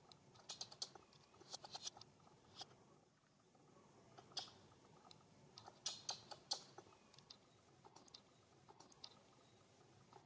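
Faint, sharp clicks coming in irregular little clusters, a few at a time, against a near-silent background. They are densest about six seconds in.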